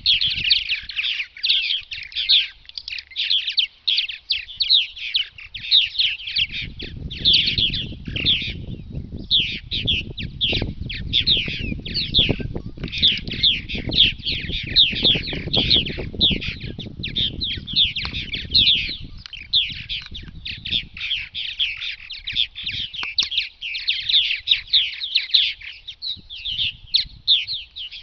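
A colony of purple martins chattering without pause, a dense run of quick chirps and gurgling trills with only one brief gap about a third of the way in.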